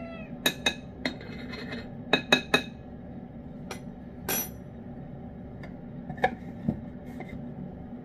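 A spoon clinking against a ceramic dish during spoon-feeding: about ten sharp, briefly ringing clinks in irregular groups, three in quick succession about two seconds in. A cat's meow ends right at the start.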